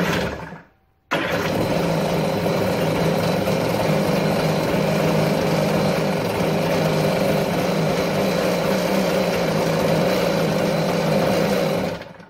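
Kawasaki 550 stand-up jet ski's two-stroke engine running, then switched off just after the start. It fires up again at once about a second in, runs steadily for about eleven seconds, and is shut off near the end. The quick, easy restart is the sign that the new starter has cured its starting trouble.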